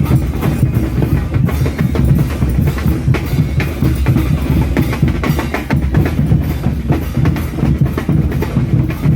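Bass drums (bombos) and clashing cymbals (platillos) of a religious dance troupe playing a dense, steady beat.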